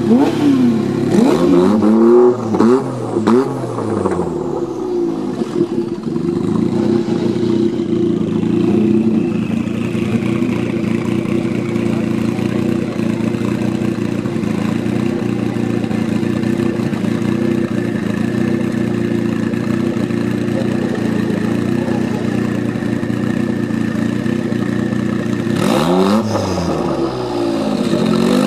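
Supercar engine revved in quick throttle blips for the first few seconds. Then the Jaguar XJ220's twin-turbo V6 idles steadily, and is revved again near the end as the car moves off.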